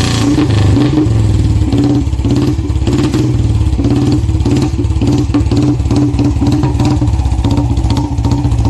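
Royal Enfield motorcycle engine idling with a steady, even beat.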